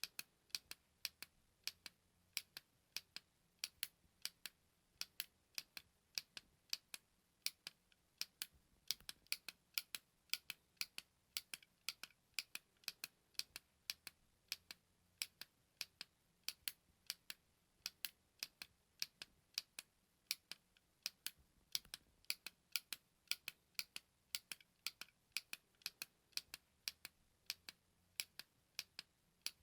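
Button clicks: a small push button pressed over and over, giving crisp, short clicks at about two to three a second, some falling in quick pairs.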